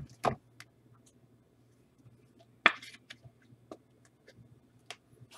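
Scattered light clicks and taps, the sharpest about two and a half seconds in, over a faint steady low hum.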